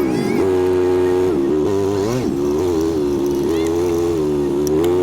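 Feed truck's engine and drivetrain running at a crawl, a steady drone with a whine that wavers slightly in pitch.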